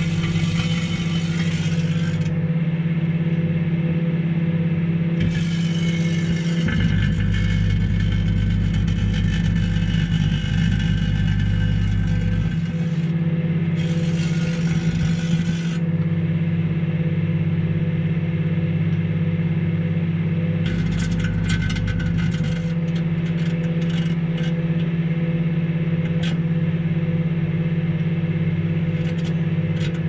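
Microwave oven running with its steady electrical hum while a butane lighter burns inside it, with several bursts of hissing and a run of sharp crackling clicks about two thirds of the way through as the lighter catches fire and melts.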